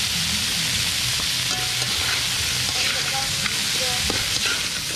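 Crabs sizzling as they are sautéed in hot oil in a large wok, a steady frying hiss with scattered crackles.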